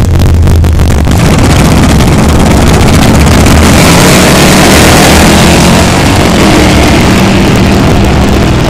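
Two drag cars, a Plymouth station wagon and a Chevrolet Camaro, launching from the starting line at full throttle and accelerating away down the strip. The engine sound is loud and swells to its loudest a few seconds in.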